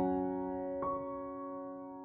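Background music: soft piano notes, one struck about a second in and left to ring and fade.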